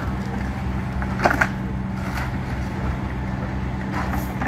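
Heavy diesel equipment at the fire scene, an excavator and a fire engine, running steadily with a low hum, with two short sharp knocks about a second in.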